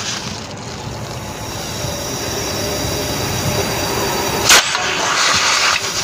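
Nitrogen gas rushing out of an air-conditioner's refrigerant line during a flush: a steady hiss with a faint high whistle that slowly grows louder, and one sharp burst about four and a half seconds in. The gas is blowing leftover compressor oil out of the system.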